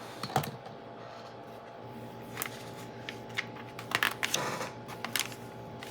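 Plastic Lego Technic pieces clicking and rattling as they are handled and pressed together: a handful of short sharp clicks, some in quick clusters, over a faint steady hum.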